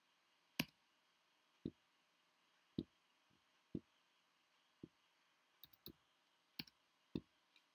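Faint, separate clicks from a computer keyboard and mouse being worked. They come roughly one a second, with a quick run of three or four near the end.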